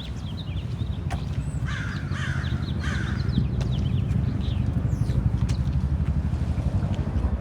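A crow cawing a few times about two seconds in, with small birds chirping, over the low, steady throb of an idling engine.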